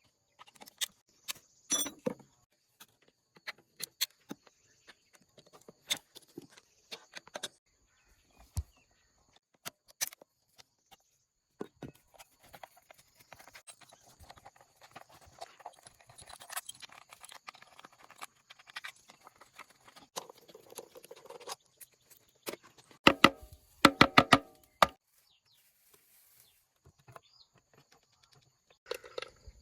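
Scattered clicks and knocks of hand tools and metal engine parts being handled during repair work, with a quick run of louder knocks about three-quarters of the way through; the diesel engine is not running.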